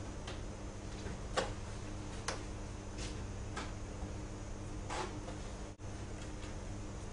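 Steady low electrical hum of room tone, broken by about six light, sharp taps and clicks spread through the first five seconds; the sound drops out for an instant near the end.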